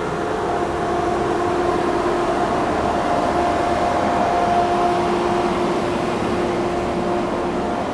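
Steady drone of a river car ferry's machinery: a low hum with two held tones that fade in and out, over a rushing noise.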